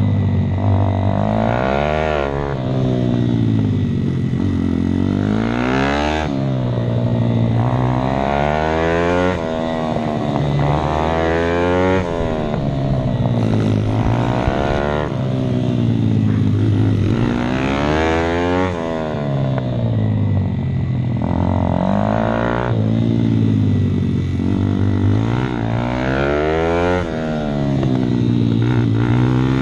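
Daytona 190cc single-cylinder four-stroke pitbike engine heard from on board, running hard. Its pitch rises and falls back again and again as the bike accelerates down short straights and slows for corners.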